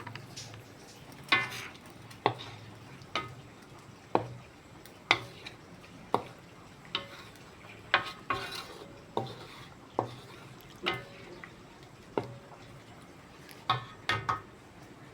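A metal cooking utensil stirring food in a pot, clanking against the side about once a second with a short metallic ring to each knock.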